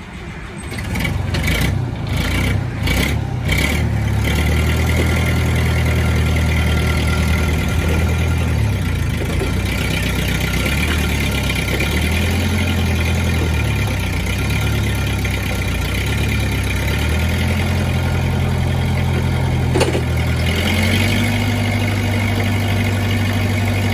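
Propane-fuelled engine of a Cat T40B forklift running, its speed rising and falling as the forklift is driven and manoeuvred. A quick run of uneven knocks in the first few seconds, and a single sharp click about twenty seconds in.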